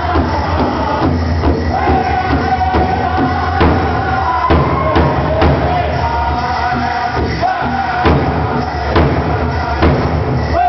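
Powwow drum group singing a grass dance song: voices in unison over a steady beat on a big drum.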